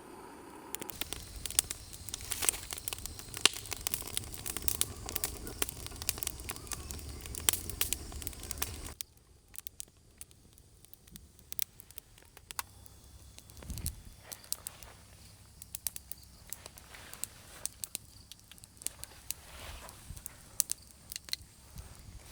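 Campfire of dry wood just catching, crackling with quick irregular pops. A low rumble lies under the crackling for about the first nine seconds and cuts off suddenly.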